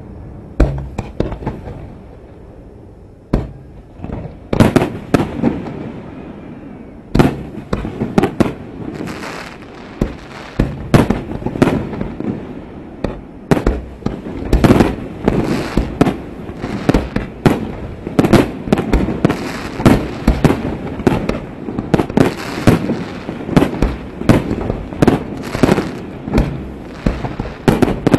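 Fireworks display over the sea: a few scattered loud bangs from bursting shells, then from about seven seconds in a rapid barrage of bangs, several a second, that keeps going.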